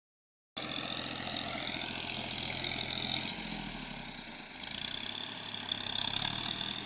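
Excavator engine running steadily, easing off briefly about four seconds in and then picking up again.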